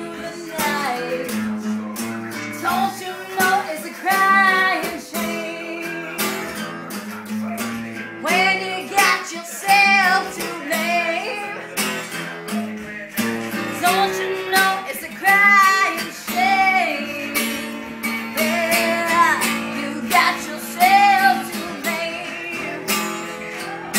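Acoustic guitar strummed in steady chords, with a voice singing along.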